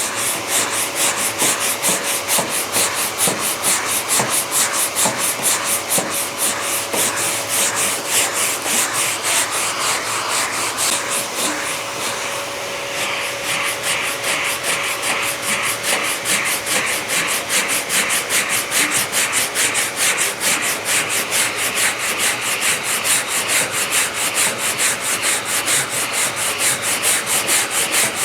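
Hand block-sanding of body filler on a car panel: sandpaper rasping back and forth, about four strokes a second, with a brief pause about halfway through.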